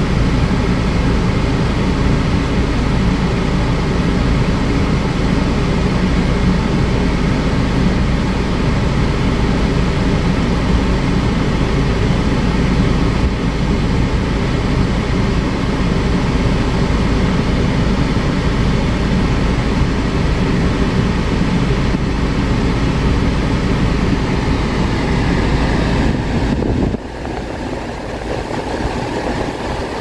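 Chevrolet Prisma's dashboard air conditioning blowing steadily inside the cabin over the low rumble of the idling engine. Near the end the low rumble drops away and the sound becomes quieter and thinner.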